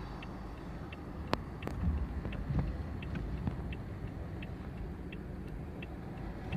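Wind rumbling on the microphone outdoors. A faint, short, high tick repeats evenly about once every 0.7 s, and there are two sharp clicks about a second and a half in.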